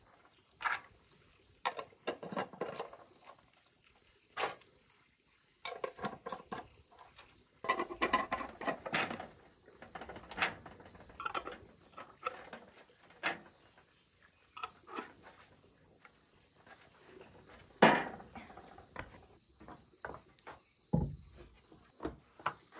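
Glass jars of molasses being handled on a metal tray, with their screw lids being put on: a run of sharp clicks, clinks and short scraping rattles at irregular intervals. Near the end come a couple of dull thumps.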